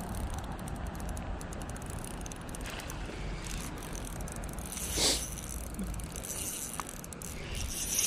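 Fishing reel clicking rapidly and steadily, over the steady rush of shallow creek water, with one brief swish about five seconds in.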